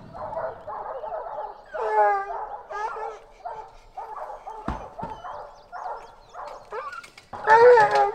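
Several hounds barking in short calls one after another as they are turned loose from the truck's dog box, with the loudest calls about two seconds in and near the end. A single sharp knock comes a little past halfway.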